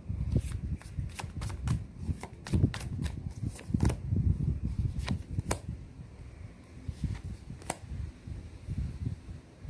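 A deck of tarot cards being shuffled, a quick run of crisp card snaps that thins out after about five seconds, with a few more near the end. Wind rumbles on the microphone throughout.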